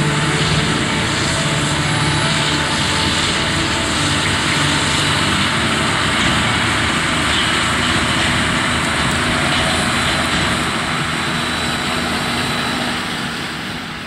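Farm tractor engine running steadily under load as it hauls a loaded silage trailer, with the wider noise of harvest machinery behind it. The sound fades out near the end.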